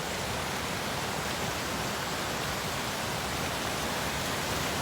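Waterfall running heavily, a steady rushing roar of falling water, swollen by recent rains.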